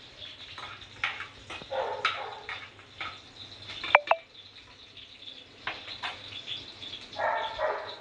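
Green chillies sizzling in hot oil in a steel kadai, with a steel spoon scraping and knocking against the pan. The loudest sound is a sharp double clink of the spoon on the pan about four seconds in.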